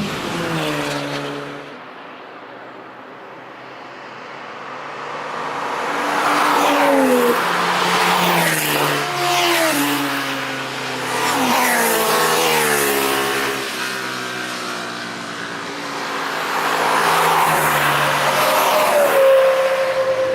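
Several cars passing at speed one after another on a race track, their engine notes rising and falling as they accelerate and ease off. The sound dips to a quieter lull a few seconds in, then grows louder again as more cars come through.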